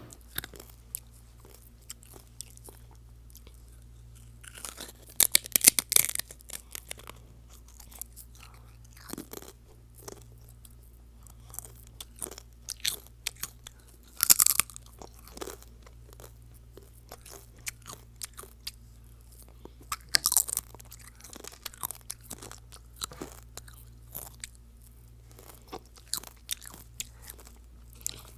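Mukbang-style eating: crunchy bites and chewing, a steady string of crackling crunches with loud bursts of biting three times, about five, fourteen and twenty seconds in, over a faint steady low hum.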